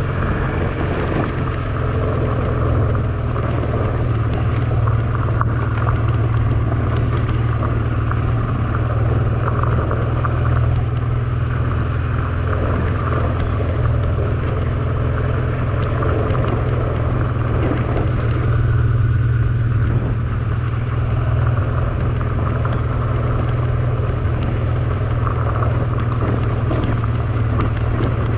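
Honda Transalp XL650V's V-twin engine running steadily as the motorcycle is ridden, with a strong low rumble.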